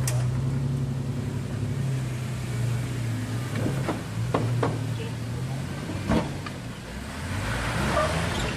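Jeep Wrangler engine running steadily at low revs while crawling, with a few sharp knocks about four and six seconds in.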